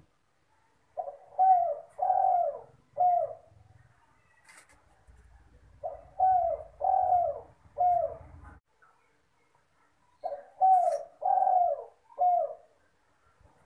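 Spotted dove (derkuku) cooing: three repeated phrases of about four notes each, a short note, two longer ones and a short one, spaced roughly four to five seconds apart.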